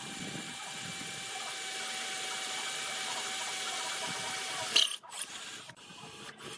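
Cordless drill running steadily with a long twist bit boring into a wooden board, a steady motor whine over the cutting. About five seconds in comes a sharp loud noise, then the drilling sound turns short and choppy.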